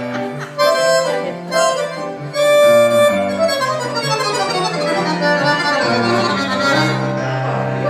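Live blues band playing an instrumental passage: a reed lead (harmonica or accordion sound) over guitar and a walking bass line, with notes sliding in pitch a few seconds in.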